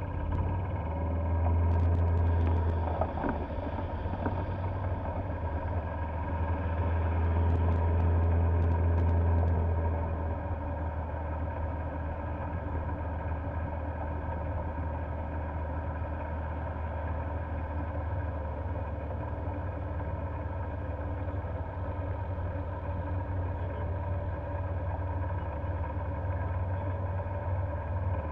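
Golf cart running along a paved road: a steady low drone with several steady tones, louder for a stretch about two seconds in and again from about seven to ten seconds in.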